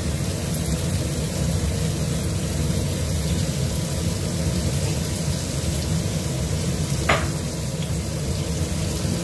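Dried anchovies (ikan bilis) sizzling steadily in hot oil in a stainless steel wok, with one brief sharp click about seven seconds in.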